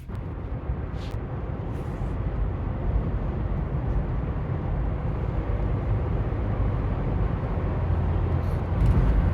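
Road noise inside a moving car's cabin: a steady low rumble of tyres and engine at highway speed, swelling a little near the end.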